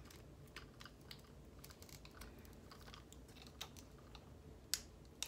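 Faint, scattered light clicks and ticks of a plastic trigger spray bottle being handled, with two sharper clicks near the end.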